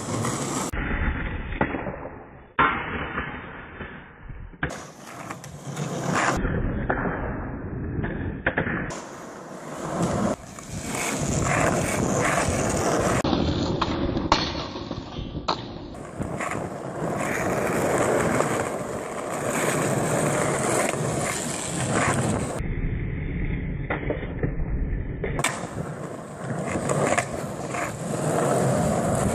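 Skateboard wheels rolling over concrete, broken by several sharp knocks and slaps of the board as tricks are tried and landed, with the loudest knock about two and a half seconds in. The sound changes abruptly at several points where short clips are cut together.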